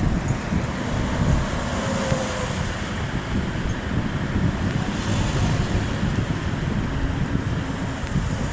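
Wind buffeting the microphone: a steady rushing noise with a heavy, gusting low rumble.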